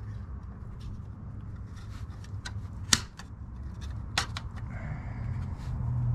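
Plastic Z06-style front grille and its small clip-on brackets being handled: a scatter of sharp plastic clicks and taps, the loudest about three seconds in and another about a second later, over a low steady rumble.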